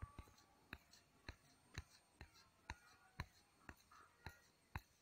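Near silence: faint, even ticking about twice a second, with a light scrape of tailor's chalk drawn along the cloth to mark a straight line.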